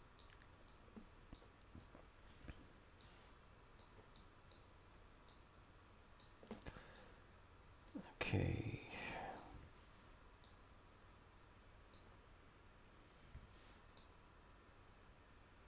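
Faint, scattered computer mouse clicks, a dozen or so spread irregularly. About eight seconds in there is a brief, louder vocal sound from the person at the computer.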